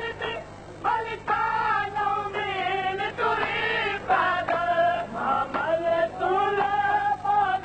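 A noha, a Shia mourning lament, sung by voices in chorus in long, wavering held notes.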